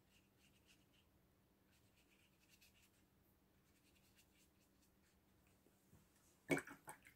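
Faint scratchy dabs and strokes of a round watercolour brush on cold-press paper, barely above room tone. About six and a half seconds in there is a louder, brief noisy rustle.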